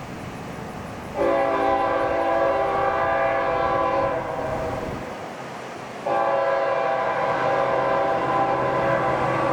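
Diesel freight locomotive's air horn sounding a chord of several notes in two long blasts of about three seconds each, the second starting about six seconds in and still going at the end, over the rumble of the approaching train.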